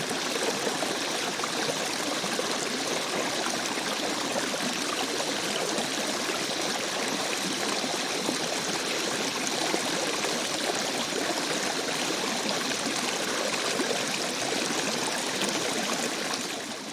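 River stream flowing, a steady rush of water that fades out near the end.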